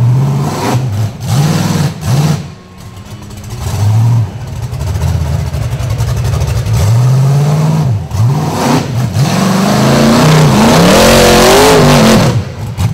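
Rock bouncer buggy's 800-horsepower Chevy V8 revving hard in repeated blips and bursts as it climbs a near-vertical ledge, with a short lull about two and a half seconds in. The longest, loudest rev comes near the end, with the tyres spinning and throwing dirt.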